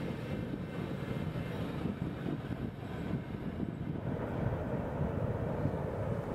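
Freight train of covered hopper cars rumbling away after its last car passes. The wheel clatter fades into a low, steady rumble.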